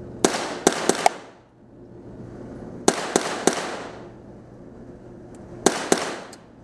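Ruger 10/22 semi-automatic .22 LR rifle firing in quick strings: four shots in the first second, three more about three seconds in, and two near the end. Each crack is followed by a short echo off the indoor range walls.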